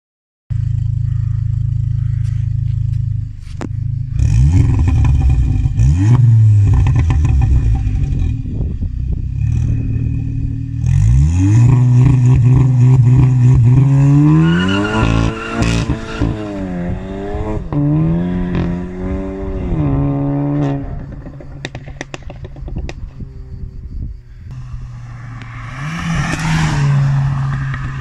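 Volkswagen Golf 7.5 GTI's turbocharged 2.0-litre four-cylinder through a full ARMYTRIX turboback exhaust with the particulate filter and catalytic converter removed. It idles, then is revved several times, with pops and crackles from a burbles/crackles tune as the revs drop. There is another rise in revs near the end.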